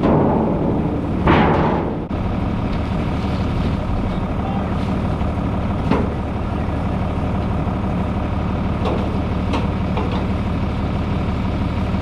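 An engine running steadily at a constant speed, with a short, louder noisy burst about a second in.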